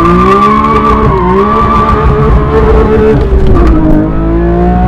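Porsche sports car's engine revving high as the clutch is dumped for a drift, with tyres squealing, heard from inside the cabin. The engine note climbs in the first half second, holds high, and drops a step about three seconds in.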